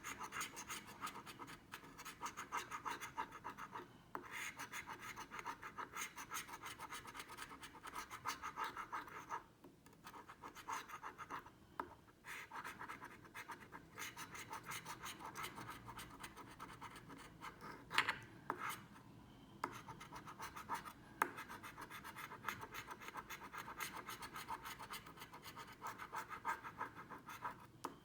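Scratch-off lottery card being scratched: rapid rasping strokes across the coating, in long runs broken by brief pauses, with a couple of sharp taps in the middle stretch.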